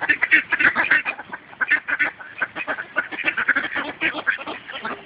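A crowd of mallard ducks quacking, many short calls overlapping without a break.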